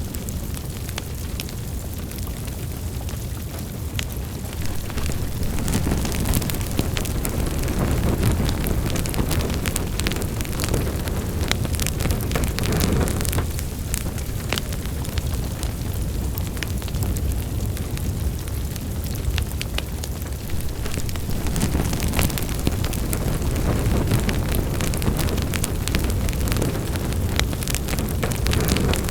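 Wood fire in a fireplace crackling and popping, many short sharp snaps over a steady low rumble of the flames that swells and eases every several seconds.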